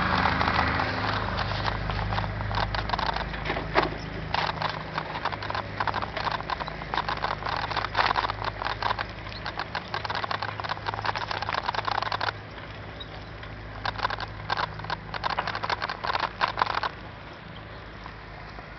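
Engines of road-works vehicles running with a low steady hum that eases off, overlaid with long stretches of rapid clicking and rattling that stop about three-quarters of the way in.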